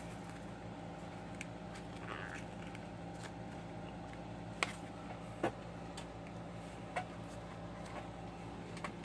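Plastic blister packaging and cardboard being handled as a marker is worked loose from a coloring book's package: a soft rustle about two seconds in, then a few sharp clicks and crinkles, over a steady low hum.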